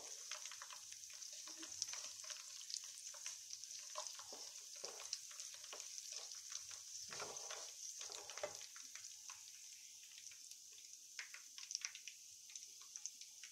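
Whole dried red chillies and panch phoron seeds sizzling in hot mustard oil in a kadai, with a steady hiss and many small crackles. A wooden spatula stirs and scrapes through the oil.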